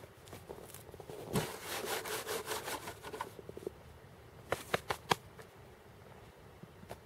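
Camp-stove gear being handled and set down on snowy dry grass: about two seconds of scraping and rustling, then four sharp clicks in quick succession as the parts are put in place.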